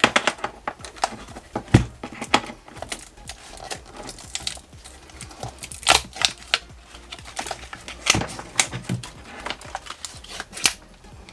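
Plastic heat-shrink wrap being peeled off an e-bike battery pack by hand: irregular crinkling and crackling with sharper clicks, the loudest a little under two seconds in and again around six and eight seconds.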